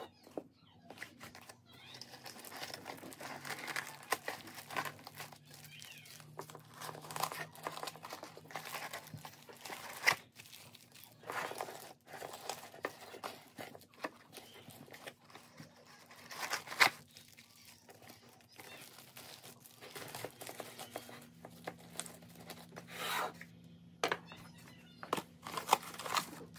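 Plastic Ziploc bags crinkling and rustling as they are handled and pushed into a bamboo box, with the cardboard bag box being opened. A few sharp knocks stand out, the loudest about ten seconds and seventeen seconds in.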